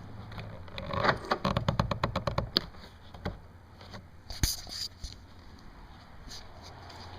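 Plastic door trim being worked loose from a Subaru WRX door panel: a rapid run of clicks for about a second, then a few separate clicks and knocks.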